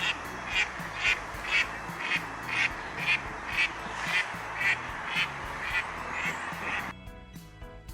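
An animal calling in a steady series, about two calls a second, over quiet background music; the calls stop about seven seconds in.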